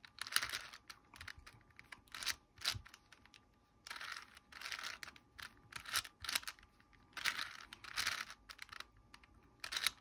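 A 4x4 Rubik's cube being turned by hand through a sequence of algorithm moves: its plastic layers click and rattle in short runs of quick turns, with brief pauses between them.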